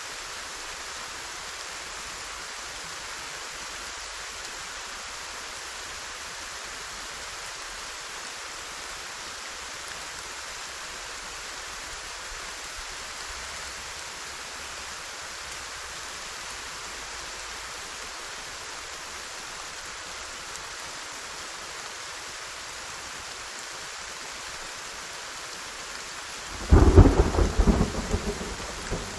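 Steady rain falling as an even hiss. Near the end a sudden loud clap of thunder breaks in, followed by several cracks that die away.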